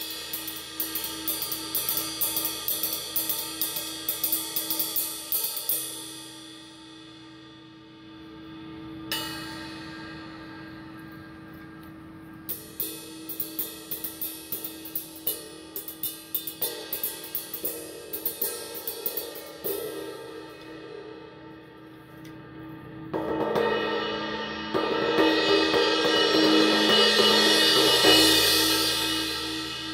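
A 20-inch, 2400-gram vintage Sabian AA Sound Control ride cymbal played with a drumstick. It opens with a quick, even ride pattern of several strokes a second, is left to ring, takes a single stroke, then a second run of ride strokes. About two-thirds through it swells into a loud, building wash, the loudest part, which fades near the end.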